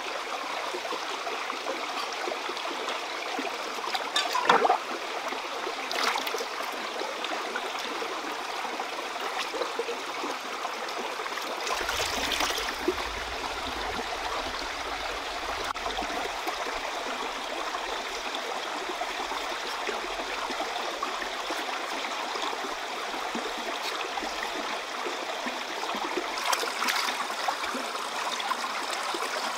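A shallow stream running over rocks, a steady rush of water. A few brief louder noises break in, the loudest about four seconds in.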